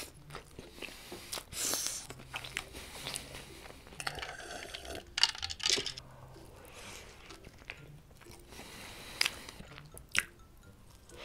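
Close-miked chewing and crunching bites of a shrimp burger dipped in cream sauce, the fried patty and bun crackling, with the loudest crunches a little past five seconds in and again around nine and ten seconds.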